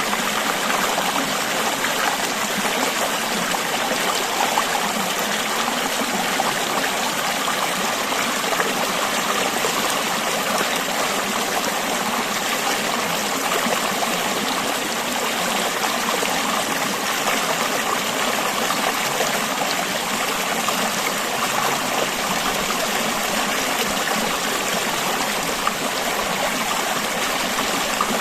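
River water flowing and babbling over stones: a steady, even rush with no change.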